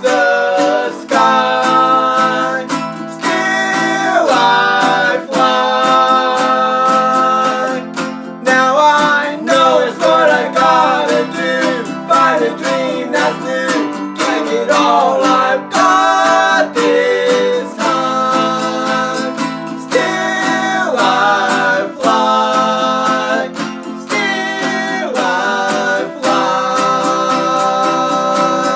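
Instrumental break in an acoustic song: strummed acoustic guitar with a melody line carried over the chords.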